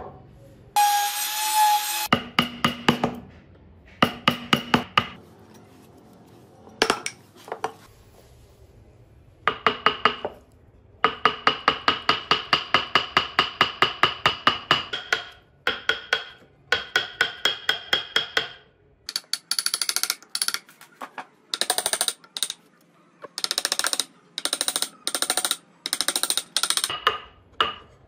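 A wood-carving chisel being tapped with a hammer as it cuts into wood, in runs of rapid strikes broken by short pauses; each tap leaves a brief ringing tone.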